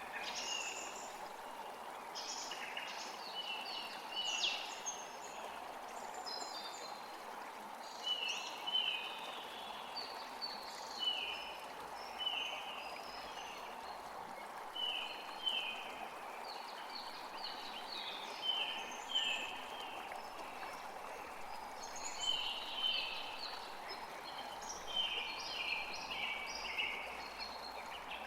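Forest creek flowing steadily, with songbirds singing over it in short, repeated chirps and trills throughout.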